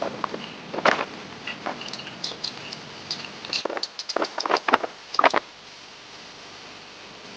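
Irregular knocks and clattering, with some scraping, that stop about five and a half seconds in.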